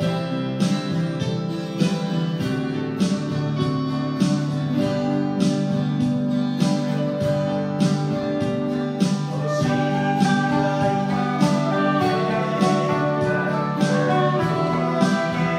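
Music with guitar over a steady beat.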